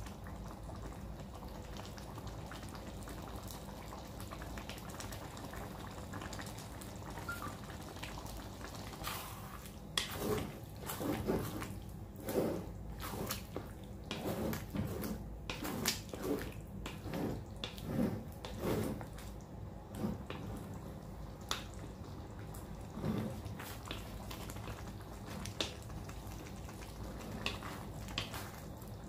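Thick pork-blood stew (dinuguan) simmering in a steel wok, its bubbles popping and dripping. A wooden spatula stirs and squelches through the stew, busiest in the middle stretch.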